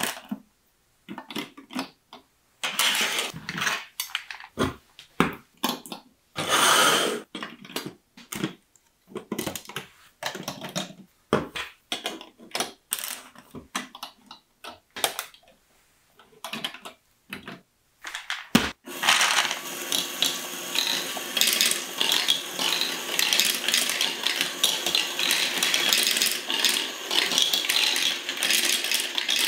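LEGO bricks and plastic track pieces clicking and clattering in short bursts as a marble run is put together by hand. About two-thirds of the way through this gives way to a continuous dense rattle of many small plastic balls rolling down LEGO tracks and being carried up a motorised LEGO elevator as the marble run runs.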